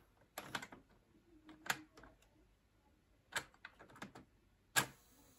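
Scattered light clicks and taps of fingers handling the plastic case, wires and tape mechanism of an opened cassette player, irregular, with the loudest click near the end.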